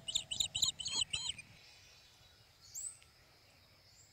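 A bird singing a quick run of chirps, about five a second, that stops about a second and a half in, followed by a single short high call about three seconds in.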